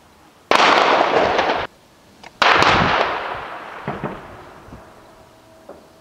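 Two heavy shelling explosions about two seconds apart. The first cuts off suddenly after about a second; the second dies away slowly over about two seconds.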